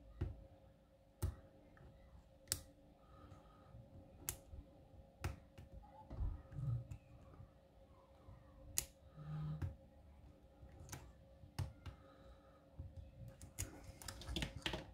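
Lock picks working inside a worn American Lock Series 200 padlock: scattered sharp metallic clicks and ticks as the hook probes the pins under tension. A faint steady hum sits underneath.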